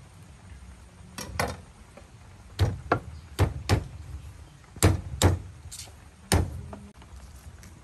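Sharp knocks of a blade or stalk striking a thick wooden chopping block as lemongrass is cut, about nine strokes in irregular pairs, each a dull thud with a crisp click.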